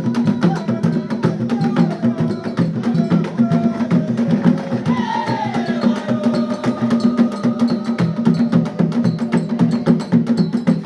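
Traditional Central African dance music: fast, dense drumming with a steady rhythm of sharp clacking, wood-block-like percussion over pulsing low drum strokes.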